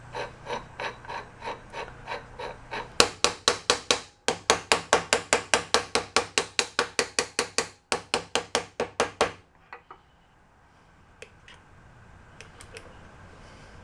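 Hammer tapping in a steady quick rhythm, driving the tight-fitting leather seal down into the carousel shaft's bearing housing. Light taps at first, then about five harder strikes a second from about three seconds in, with two brief pauses, stopping at about nine seconds; a few faint clicks follow.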